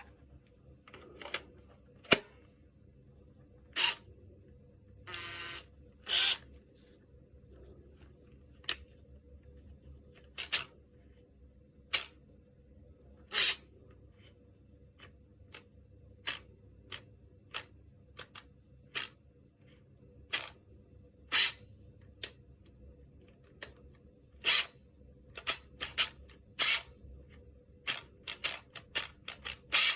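Irregular sharp clicks and clacks of hand work on a Makita TD146D 18 V impact driver being taken apart, with one short rasping stretch about five seconds in and the clicks coming faster near the end.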